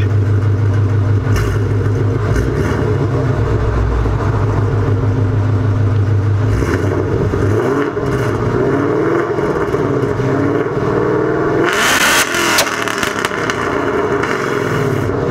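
Ford Mustang engine running at a steady idle through its exhaust, then revved up and down several times. About twelve seconds in there is a sudden loud burst of exhaust blast.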